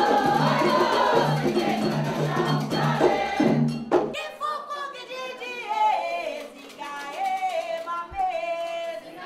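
Candomblé ritual chant: a group singing over a steady percussion beat, which cuts off abruptly about four seconds in. A single voice then sings a slow, wavering line over light clicking percussion.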